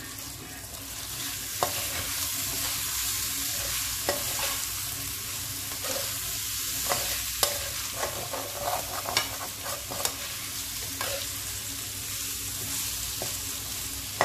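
Steel slotted spatula stirring cooked potatoes and peas in a steel kadai, scraping and clinking against the metal at irregular intervals over a steady sizzle from the pan.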